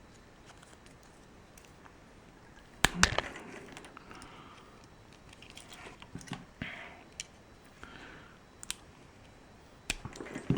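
Scattered sharp clicks and soft scraping of hands working small objects, loudest about three seconds in: the key being cut free of its wrapping.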